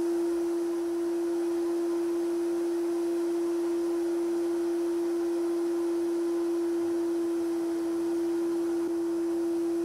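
Sandblasting gun working over a meat grinder's metal body inside a blast cabinet: a steady hiss of air and grit, under a louder, unchanging droning tone.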